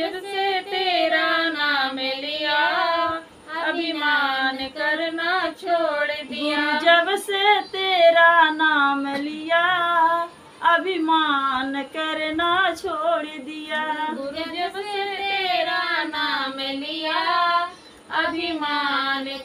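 Women singing a Hindi devotional bhajan together, unaccompanied, in long drawn-out phrases. Short breaks between phrases come about three, ten and eighteen seconds in.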